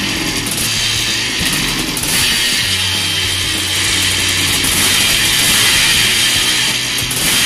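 1983 Yamaha YZ490's single-cylinder two-stroke engine running and being revved, a raspy chainsaw-like sound that gets louder about two seconds in and again near the end.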